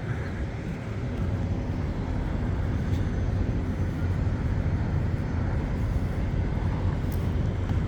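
Steady low mechanical rumble with a faint hum, typical of distant engine noise.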